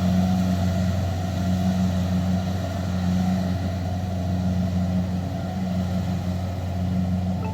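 Kubota DC-70 combine harvester's diesel engine running steadily at working speed.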